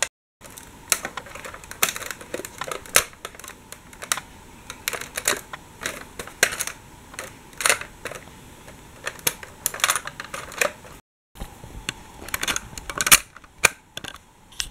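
Hand handling a plastic Dickie Toys City Liner toy tram: irregular light clicks and taps of hard plastic, some sharper than others. The sound cuts out completely for a moment just after the start and again about three-quarters of the way through.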